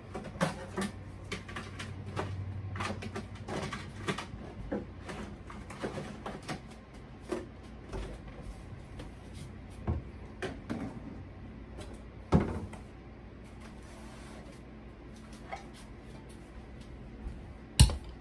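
Wooden kitchen cabinet doors being opened and shut, with a string of knocks and light clatter as things are handled on the shelves. A stronger knock comes about twelve seconds in, and the loudest sharp knock just before the end.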